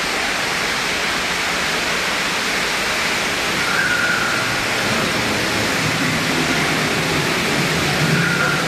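Steady rushing of an artificial waterfall spilling over rockwork.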